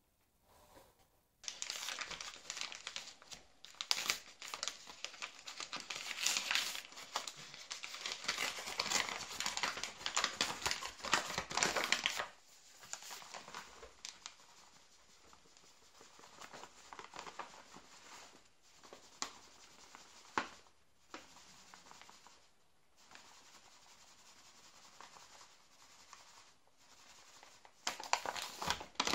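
Paper flour bag crinkling and rustling as oat flour is tipped and shaken out of it into a plastic mixing bowl. It is loudest through the first dozen seconds, quieter after, and louder again near the end.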